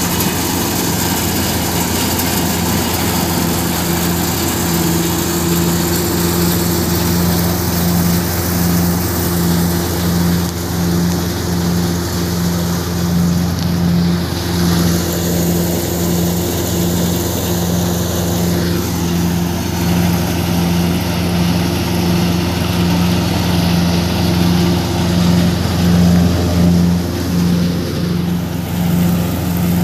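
Tractor-driven Gautam thresher running steadily while threshing. The engine and the machine's spinning drum make a loud, even hum with a regular slow pulse.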